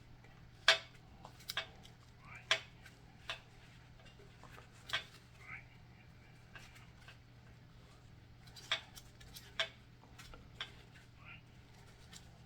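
Light metallic clicks and clinks, about a dozen at irregular intervals, from a steel connecting-rod bearing shell and rod end being handled and pressed while the shell is snapped into place.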